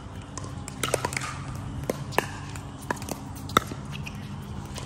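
Pickleball paddles striking the hard plastic ball during a rally: a string of sharp pops at uneven spacing, roughly one every half second to second, the loudest about three and a half seconds in, over a low steady hum.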